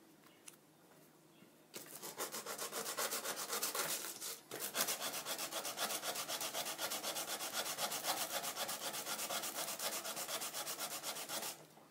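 Sandpaper rubbed by hand on wood: a fast, even run of back-and-forth strokes starting about two seconds in, with a brief pause partway through, stopping just before the end.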